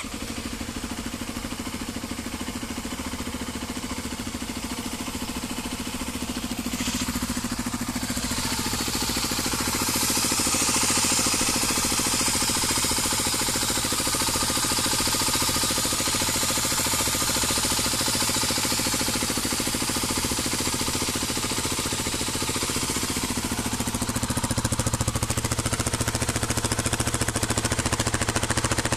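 Dirt bike engine idling steadily, its note deepening about 24 s in.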